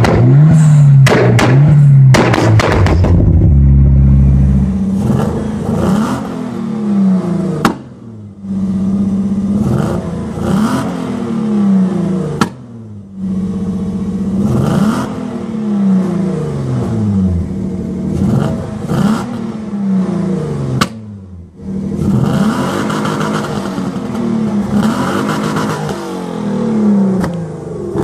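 Ford Sierra Cosworth exhausts: at first sharp bangs and crackles from a car with anti-lag, then another Sierra, a 2.9 Cosworth, revved over and over, each rev rising and falling over a second or two, with an occasional sharp bang from the exhaust.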